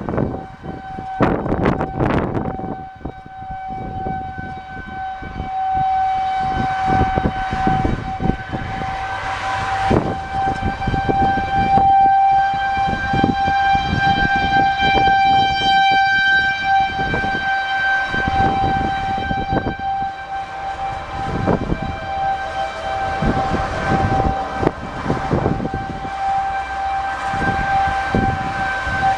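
Outdoor tornado warning siren sounding a steady wail at one pitch, swelling and fading in loudness, over a rough low rumble.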